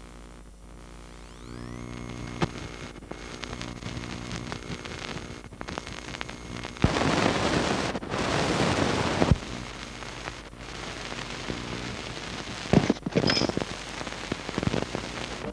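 Surface noise of an old film soundtrack: a steady hum with hiss and crackle, scattered clicks and pops, and a louder stretch of hiss for about two seconds midway.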